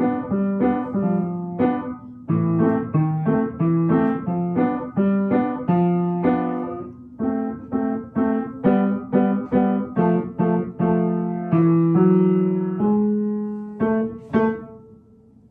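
Upright piano played by a young child: a simple tune of single struck notes at a steady pace, with short breaks between phrases, ending on a note that rings and dies away near the end.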